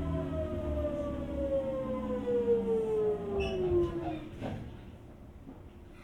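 Sotetsu 8000 series train's Hitachi GTO VVVF inverter whine, heard from inside the car, falling steadily in pitch as the train brakes and fading out about four seconds in as it slows for the station. A short knock comes just after the whine fades.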